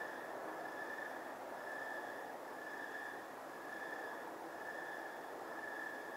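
Night insects calling outdoors: one repeated chirp-like tone pulsing evenly a little more than once a second over a steady background hiss.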